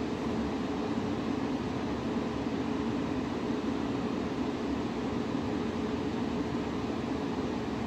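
Electric train at the platform giving off a steady hum and whirr, a constant low tone running through it with no change in level.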